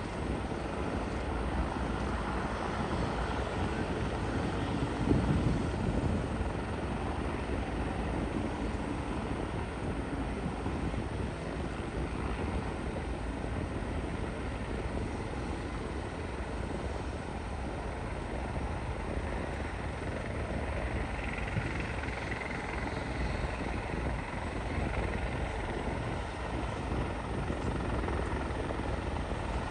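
Antonov An-32B's twin turboprop engines at takeoff power as the aircraft climbs out, a steady propeller drone that is loudest about five seconds in.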